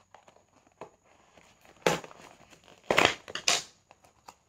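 A cardboard box being opened and a tripod in a black plastic bag pulled out of it: three short bursts of tearing, scraping and crinkling, one about two seconds in and two close together around three seconds in.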